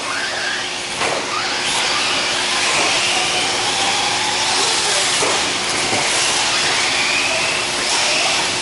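Radio-controlled racing cars running on a dirt track: a steady rushing noise with high-pitched motor whines that rise and fall as the cars speed up and slow down.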